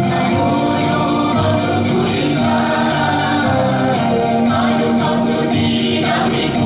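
Song with a singing voice and held notes over a steady percussion beat.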